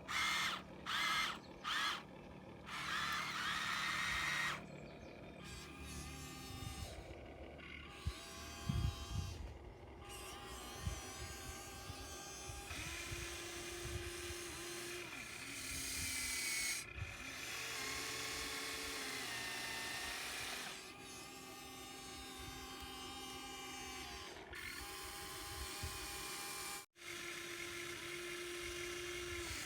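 Whine of small electric motors of a radio-controlled model excavator working, its pitch shifting in steps as the motors change load and speed, broken by several abrupt cuts.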